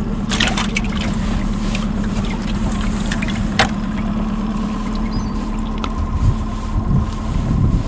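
A boat's outboard motor idling with a steady hum. A few sharp clicks or knocks sound over it, the clearest about three and a half seconds in.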